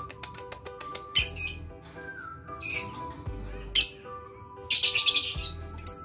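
Lovebird giving short, sharp, high-pitched chirps about once a second, with a rapid run of chirps about five seconds in, over background music.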